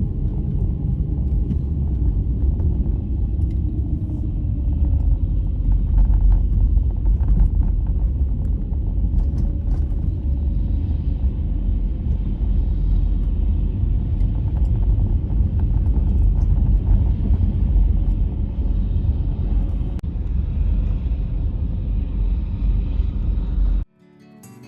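Steady low road rumble of a car being driven, heard from inside, with faint ticks and rattles; it cuts off suddenly just before the end.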